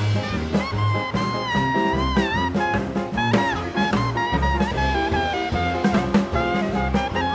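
Background music: upbeat swing-style jazz with horns playing a bending melody over a steady bass and drum beat.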